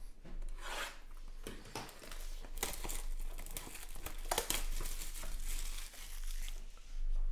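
Clear plastic shrink wrap on a trading-card hobby box crinkling and tearing as it is pulled off by hand and crumpled, in irregular crackles that are busiest in the middle.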